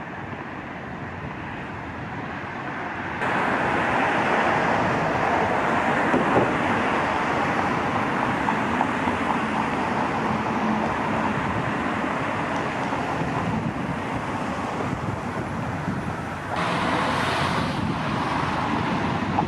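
Steady road traffic noise from passing cars, with no single distinct event. The level steps up suddenly about three seconds in and changes again, brighter, near the end.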